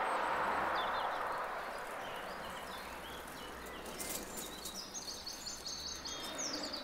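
Outdoor ambience of birds chirping, over a rushing noise that fades away in the first few seconds. Near the end a bird gives a fast run of repeated chirps.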